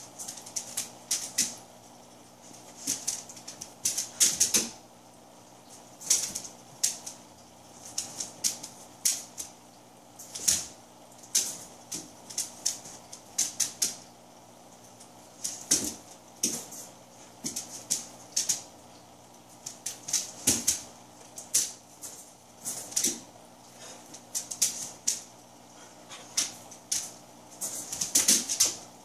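A dog moving about and nosing at a wire cage on a hard floor: irregular bursts of sharp clicking and tapping, several clusters a few seconds apart.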